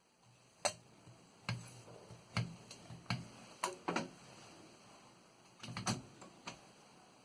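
Keystrokes on a 1935 Remington Rand Noiseless Model 1 portable typewriter: a dozen or so separate key strikes at an uneven, slow pace, with a quick run of several strokes about six seconds in.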